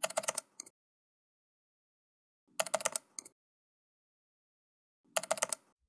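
Three short bursts of rapid clicking, a handful of sharp clicks each, about two and a half seconds apart, with dead silence between.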